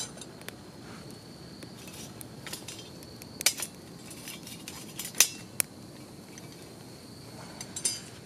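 Wood fire crackling in a TOAKS titanium wood-burning stove: scattered sharp clicks and pops, a few louder ones in the middle and near the end, over a steady high insect trill.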